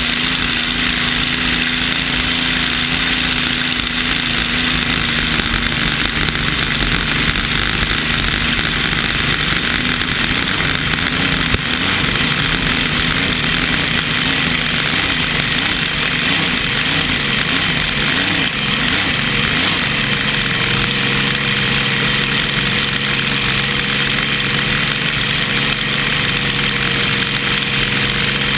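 Vintage race hydroplane's engine running hard at speed, heard onboard from the cockpit with the rush of wind and spray over it. The engine note wavers for several seconds midway, then holds steady.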